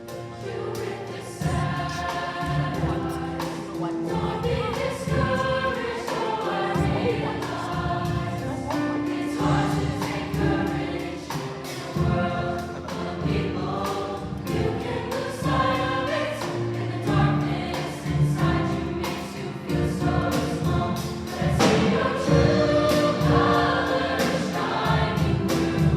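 A choir singing with instrumental accompaniment, a steady beat marking regular entries.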